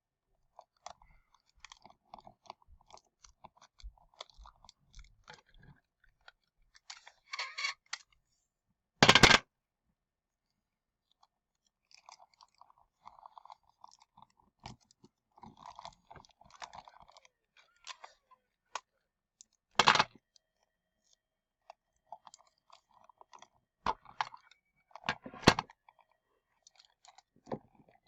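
Hands working on a plastic animatronic toy dog: scattered small clicks, rattles and crackles, with a few sharp louder knocks about a third of the way in, around two-thirds through and twice near the end.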